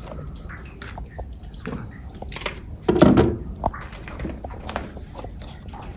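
Scattered clicks and handling noises of small accessories being handled close to the microphone, with a louder knock-like sound about three seconds in.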